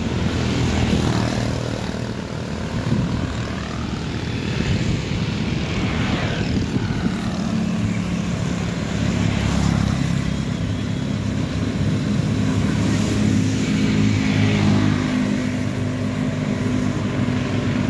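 A vehicle engine's steady drone with road and wind noise, heard while moving along a town street. Passing traffic swells and fades now and then.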